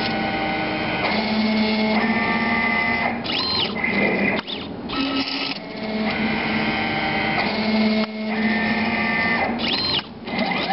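Drive motors and belt drives of a homemade CNC table moving the gantry and pen carriage while a Sharpie draws a test pattern: a steady whining that jumps to a new pitch with each move, breaking off briefly between moves.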